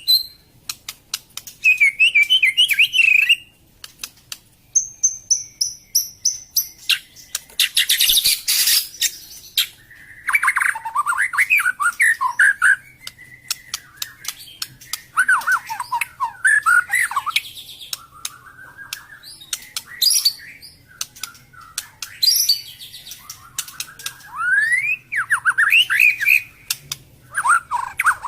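White-rumped shama (murai batu) singing: bursts of rich, varied whistled phrases and trills separated by short pauses, with many sharp clicking notes between them.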